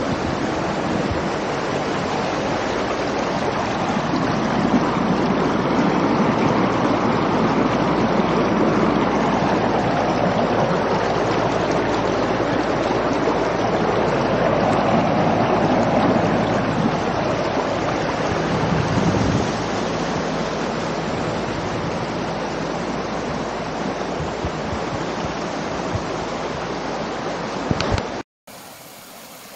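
Muddy floodwater rushing down a gravel wadi channel after heavy rain, a steady loud rush that swells in the middle and drops away abruptly to a quieter hiss near the end.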